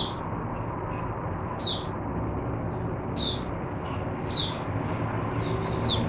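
White-eye (mata puteh) giving short, high chirps about every second and a half, breaking into a quicker run of chirps near the end, over a steady low hum.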